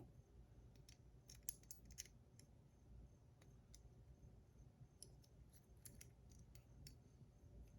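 Near silence, with a few faint, light clicks scattered through it: a fidget spinner with tungsten buttons being handled and spun.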